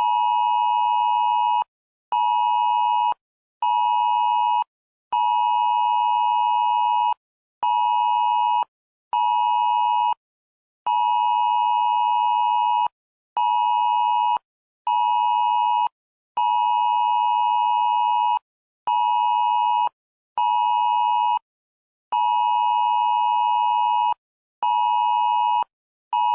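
Electronic emergency-alert beeping: a steady two-note electronic tone switched on and off in a repeating pattern of one long beep followed by two short beeps, about five times over.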